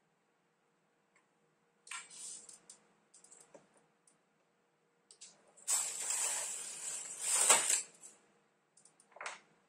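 Carriage of a Silver Reed SK830 knitting machine pushed by hand across the needle bed, a loud sliding sweep lasting about two seconds past the middle. Shorter clicks and scrapes of the needles and carriage come before and after it.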